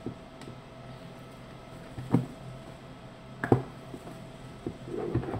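Shrink-wrapped cardboard camera box handled on a table: a few sharp knocks and thumps, the loudest about two and three and a half seconds in, then a short rubbing sound near the end.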